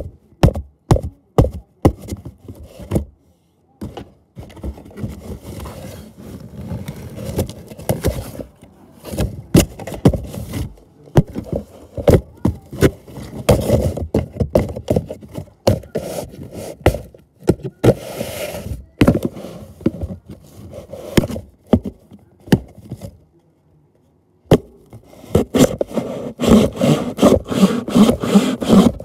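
Irregular knocks, thuds and scraping from a cardboard box being handled and broken apart, with a brief lull about three quarters of the way through before the knocking picks up again.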